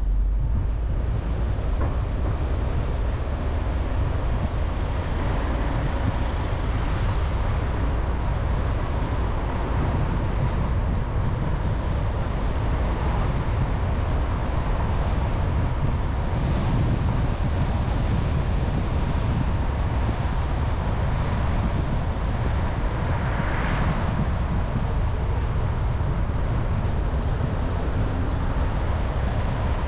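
Car driving: steady engine and tyre noise with a deep rumble.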